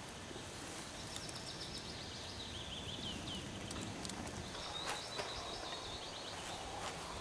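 A small songbird singing two phrases of quick, high-pitched repeated notes, the first ending in a few falling notes, over a faint steady background hiss. A couple of faint clicks come near the middle.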